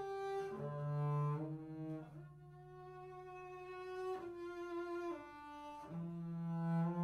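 Double bass played with the bow: slow, sustained notes, a low note held under higher notes that shift about once a second, with short glides between pitches.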